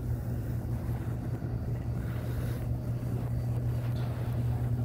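Steady low electrical-mechanical hum with a faint rumble under it, the background drone of a small store.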